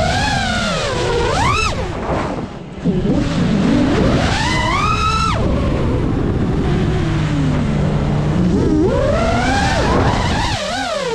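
5-inch FPV quadcopter's brushless motors whining, the pitch sweeping up and down with the throttle. About five seconds in, a steeply rising whine cuts off suddenly, then builds again.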